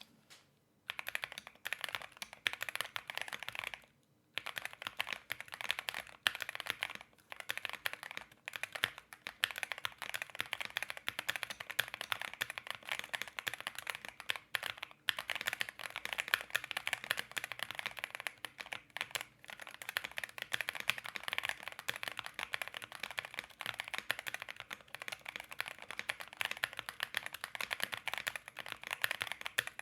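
Steady typing on an Akko Alice Pro Plus mechanical keyboard with Akko CS Crystal switches and doubleshot PBT ASA-profile keycaps, in a tape-modded case with a silicone pad. Rapid keystrokes start about a second in, with a brief pause about four seconds in.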